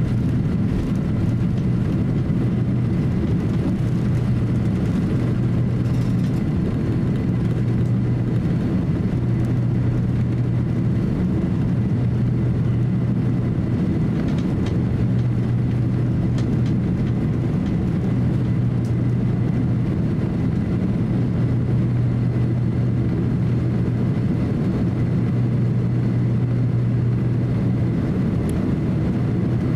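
Cabin noise of a Boeing 767-300 taxiing along the runway after landing: a steady low drone from the engines at idle, with the rumble of the airliner rolling on its wheels.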